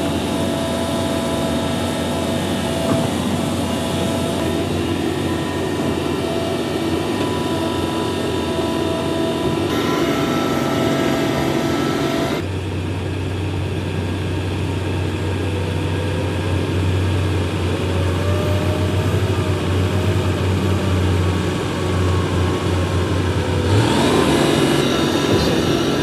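Heavy diesel engine of a Hitachi ZAXIS 350H excavator running steadily under work. The sound changes abruptly about twelve seconds in and again near the end.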